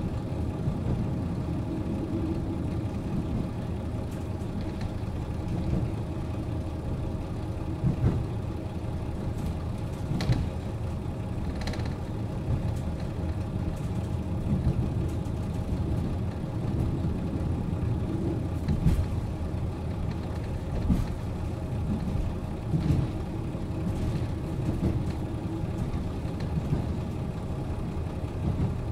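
JR Hokkaido KiHa 40 diesel railcar's engine idling steadily while the railcar stands at the platform, with a few faint clicks over it.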